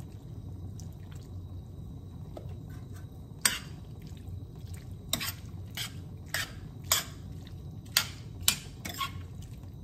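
Whipping cream poured from a carton into a skillet of penne, shrimp and bacon. Then a metal slotted spoon stirs the pasta and clinks against the pan about nine times, starting a few seconds in.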